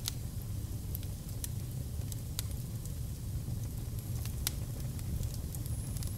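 Open fire crackling: a steady low rumble with scattered sharp pops and snaps.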